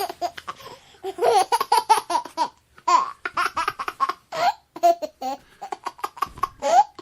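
A baby laughing and giggling in quick repeated bursts, with a short pause just before the laughter starts about a second in.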